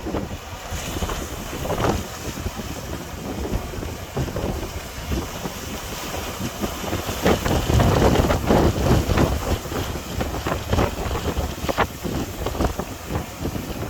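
Gale-force wind buffeting the microphone over rough surf, rising and falling in gusts, with the loudest stretch about eight seconds in.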